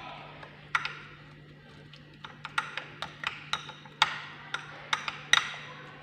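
A small spoon clicking and tapping against a bowl while stirring turmeric into a thick face-mask paste: a couple of clicks about a second in, then irregular clicks two or three a second from about two seconds in.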